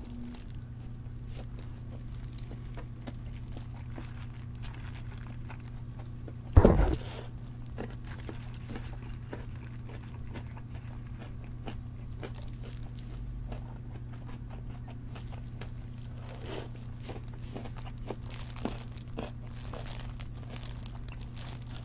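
Close-miked eating sounds: small crunches and clicks of gnawing a fried chicken drumstick, with thin plastic gloves crinkling, over a steady low hum. A single loud knock about six and a half seconds in is the loudest sound.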